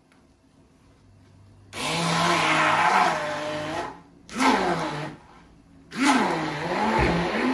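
Handheld immersion blender running in three bursts, grinding soaked lentils with garlic and ginger into a paste; its motor pitch wavers up and down as the blade works through the thick mix. It starts after nearly two seconds, with a short break before the second and third runs.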